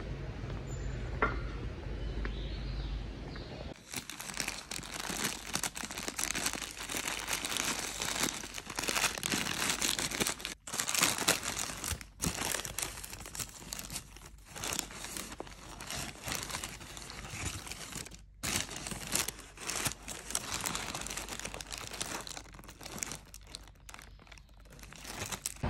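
A low steady rumble, then, about four seconds in, close crackly crinkling and rustling that keeps going with brief breaks.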